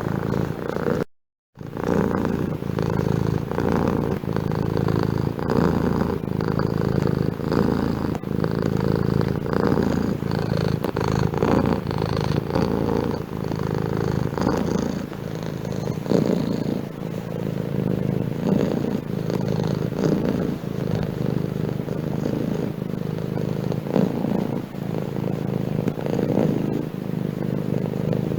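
Domestic cat purring steadily, with a brief dropout of about half a second near the start.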